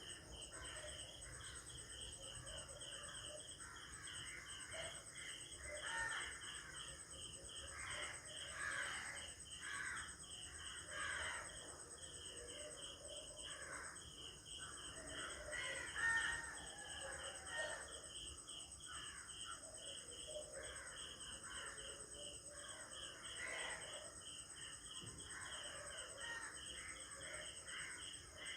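Crows cawing over and over, overlapping, above a steady insect chorus: a pulsing trill and a continuous high buzz. The loudest call comes about halfway through.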